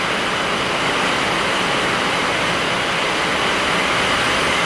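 Steady rushing noise of a violent storm, strong wind with heavy rain, with no let-up, heard through an open doorway.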